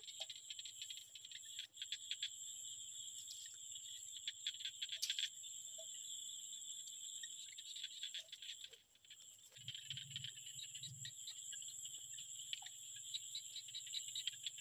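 Faint evening insect chorus: a steady, fast-pulsing high trill with a thin, higher steady whine above it.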